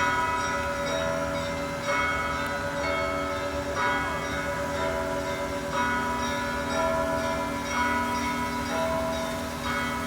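Bells ringing, a bell struck about once a second, with several tones overlapping and ringing on between strikes.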